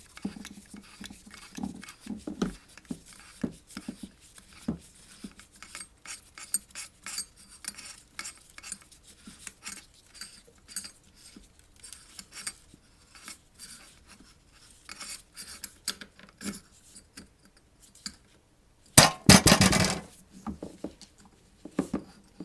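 Light metallic clicks, taps and scrapes of a Panzerarms AR12 shotgun's parts being handled and worked loose during disassembly. Near the end comes a louder burst of rattling and scraping lasting about a second.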